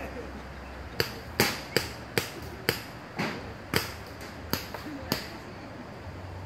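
Paintball markers firing: a string of about ten sharp pops at irregular intervals, some in quick succession.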